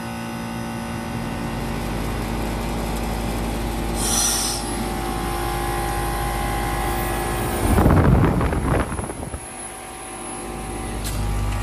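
1996 Goodman Desert Series 4-ton heat pump outdoor unit finishing its defrost cycle: a steady compressor hum, a short hiss about four seconds in, then a loud whoosh of refrigerant lasting about a second as the reversing valve shifts back. The unit drops quieter for a moment, then its running sound builds back up with a click near the end. The owner thinks the shift sounds a little like a sticking reversing valve.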